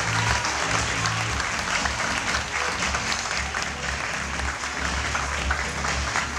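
Audience applauding over background music with low bass notes.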